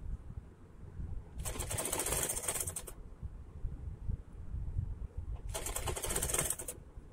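Sewing machine stitching piping onto a kurti hem in two short runs, about a second and a half each: one starting about a second and a half in, the other near five and a half seconds. Each run is a fast, even needle rattle.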